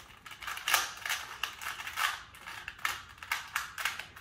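3x3 Rubik's Cube being twisted quickly by hand: the plastic layers clicking and clacking as they turn, in quick, uneven runs of several clicks a second.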